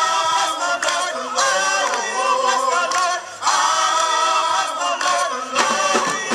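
Gospel choir of men and women singing together in harmony, long held phrases with short breaks between them.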